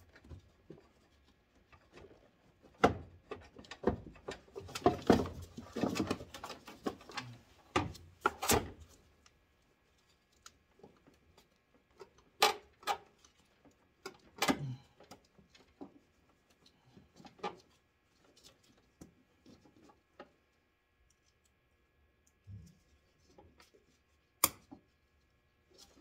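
Hands handling a plastic wiring connector and washer-pump parts under a truck's hood: a busy stretch of rustling and knocks in the first several seconds, then scattered sharp clicks and taps.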